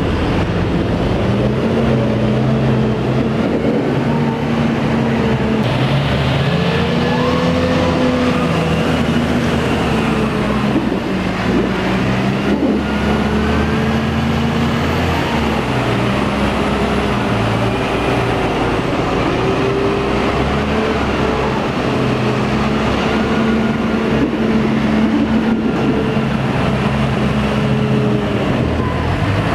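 Valtra T214 tractor's six-cylinder diesel engine working under load on a silage clamp, its revs rising and falling as it climbs and pushes grass up the pit.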